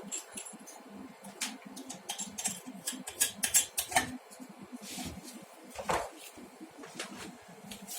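Irregular clicks, knocks and light metallic clatter of coaxial connectors and dummy loads being handled as a 50-ohm dummy load is swapped for a 25-ohm one. The loudest knocks come a little past the middle, with one more about six seconds in.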